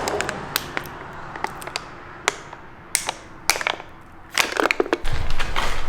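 Scattered sharp knocks and clatter of objects being handled and moved while someone rummages through a shop, with a low rumble starting near the end.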